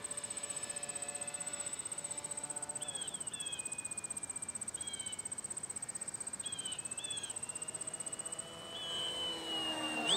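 Crickets chirring with a high, rapidly pulsing buzz that stops near the end, under the whine of small electric-motor RC model planes flying overhead. The motor note falls in pitch as a plane draws away early on, and a second whine rises sharply and grows loudest as a plane comes in close at the end.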